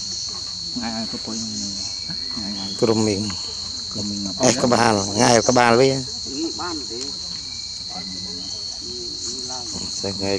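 Steady, high-pitched insect chorus droning without a break, with a voice coming and going over it, loudest about halfway through.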